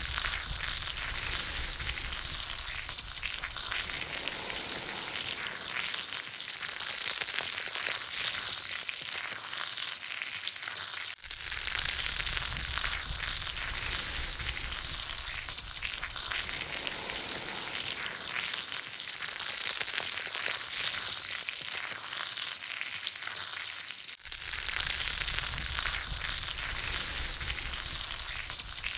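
Chicken wings and hot charcoal sizzling and crackling on an open charcoal grill, a steady crackling hiss that drops out for a moment twice.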